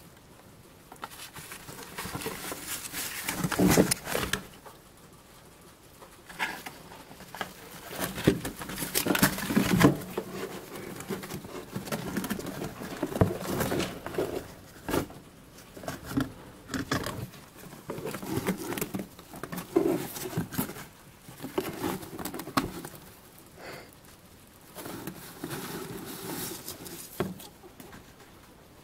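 A four-toed hedgehog rummages through wood-shavings bedding and pushes a cardboard toilet-paper tube about, making irregular rustling and scraping with sharp knocks and taps. The noise comes in uneven bursts with short pauses between them.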